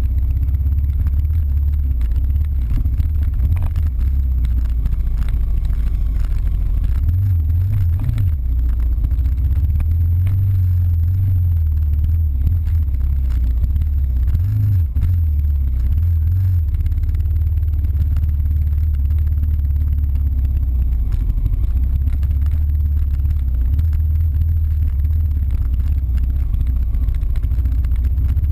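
Dirt bike engine running while riding a trail, its revs rising and falling a few times in the middle.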